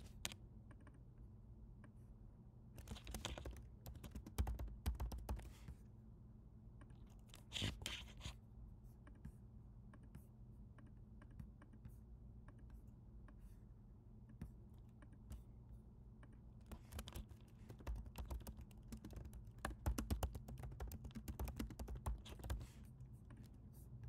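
Computer keyboard typing in bursts: a run of keystrokes about three seconds in, a short burst near eight seconds, and a longer stretch of typing in the last third, over a low steady hum.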